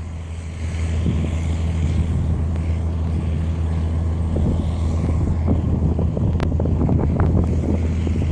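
Strong wind from an oncoming dust storm buffeting the microphone, growing more gusty with crackling hits in the second half, over a steady low hum.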